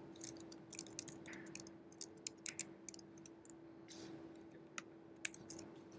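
Faint, irregular clicks of computer keyboard keys being typed, over a steady low hum.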